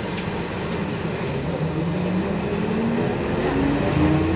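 Ikarus 280.26 articulated bus heard from inside the passenger cabin, its Rába-MAN six-cylinder diesel pulling and rising steadily in pitch as the bus gathers speed.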